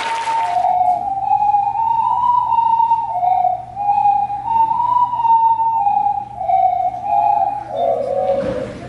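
An ensemble of ocarinas playing a simple melody in unison, a clear, almost pure flute-like tone stepping between notes. The tune dips lower and pauses briefly near the end.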